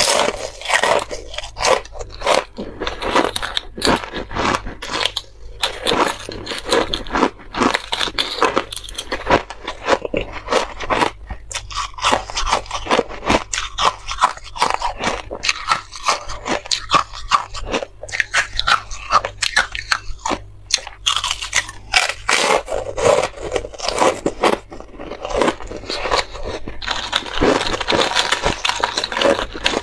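Close-miked biting and chewing of frozen buckwheat ice discs: a dense run of sharp, crackling crunches as the ice breaks between the teeth.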